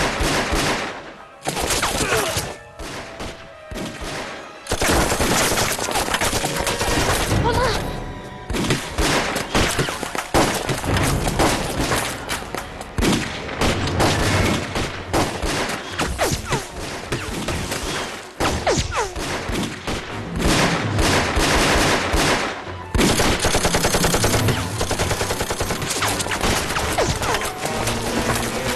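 Dense gunfire of a screen battle: rapid rifle shots and machine-gun bursts firing almost without pause, thinning out briefly a couple of seconds in.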